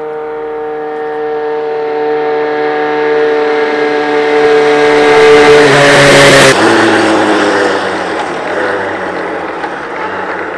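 Kawasaki Z1's air-cooled 903 cc inline-four running through a PAMS four-into-one collector exhaust, passing by at a steady throttle. The note grows louder as the bike approaches, drops in pitch as it passes about six and a half seconds in, then fades as it rides away.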